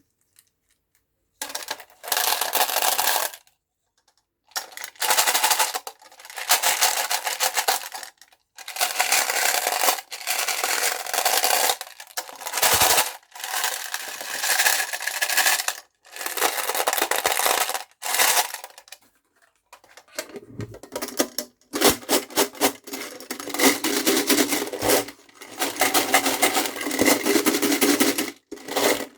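Hard candies rattling and clattering against a metal box, in a series of bursts of a second or few each with short pauses between, then a steadier, fuller rattle from about twenty seconds in.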